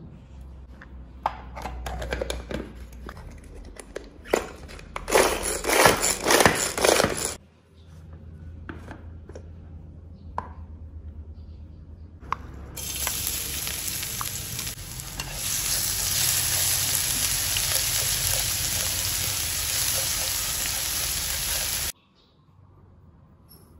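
Mini food chopper whirring in a loud burst of about two seconds as its blade chops garlic cloves and red chilies, among clicks of the bowl and lid being handled. Later a steady hiss runs for about nine seconds and cuts off sharply.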